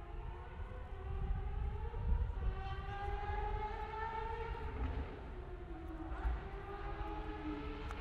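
Distant race car engines heard faintly across the circuit, their pitch slowly rising and falling as they accelerate and ease off, over a low background rumble.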